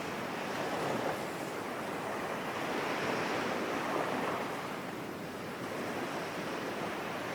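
Ocean waves washing ashore, a steady background sound effect that swells gently and eases off a few times.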